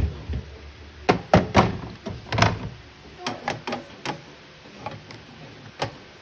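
Irregular knocks and clacks of food containers and produce being set down on the shelves of a small fridge, several close together a little after a second in, then more spaced out.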